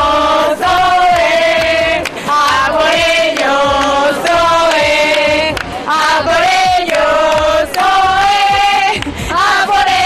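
A group of women chanting a football chant together, in phrases of long held notes with short breaks between them.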